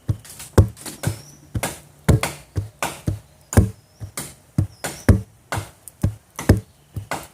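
Shamanic hand drum beaten in a steady rhythm of about two beats a second, each stroke a sharp hit with a low thump; the beats stand for the heartbeat.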